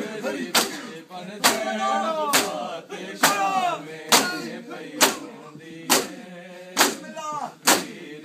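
A group of men beating their chests with their open palms in unison (Shia matam), a sharp, loud mass slap about once every second, nine strikes in all. Men's voices chant a lament between the strikes.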